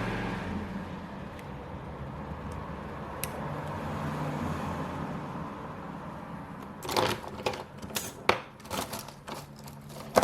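A steady low machine hum that eases off over the first second or two, then, from about seven seconds in, a run of sharp clicks and taps of small metal tools working on the phone's parts.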